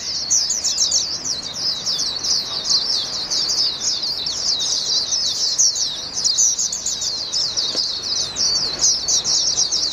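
Caged Swinhoe's white-eye (Taiwanese white-eye), a trained song-contest bird, singing a long, unbroken, rapid high-pitched warble made of quick falling notes.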